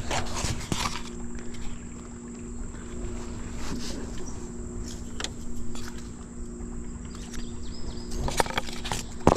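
Electric trolling motor humming steadily on a small jon boat, with a few sharp knocks against the boat.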